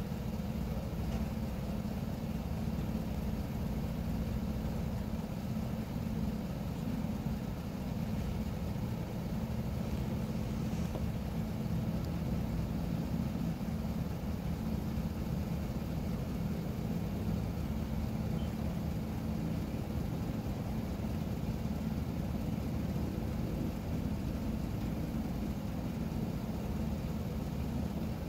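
A vehicle engine idling: a steady low hum that holds even throughout.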